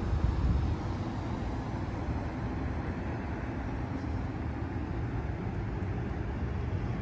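Wind buffeting a handheld microphone outdoors: a steady, choppy low rumble, with a stronger gust just after the start.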